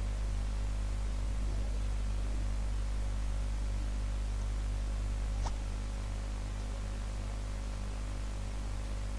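Steady electrical mains hum with hiss on the recording, interference that disturbs the sound track. A single sharp click comes about five and a half seconds in, after which the lowest part of the hum is a little quieter.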